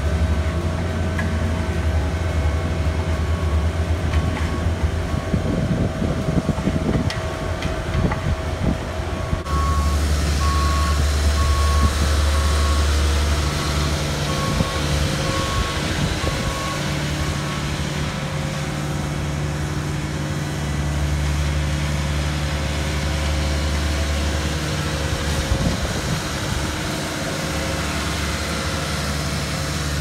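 Diesel engine of an asphalt paving machine running steadily at a low hum. Partway in, a back-up alarm beeps steadily for several seconds.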